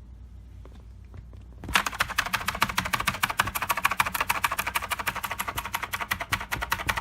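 Typing on an AZiO Retro mechanical keyboard: after a quiet second and a half, a fast, steady run of loud clicking keystrokes.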